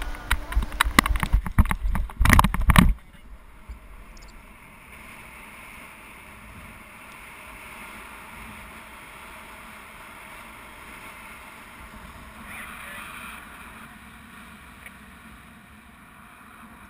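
Wind rushing over a GoPro camera in flight under a paraglider, a steady rushing noise. The first three seconds hold loud wind buffeting and knocks against the camera.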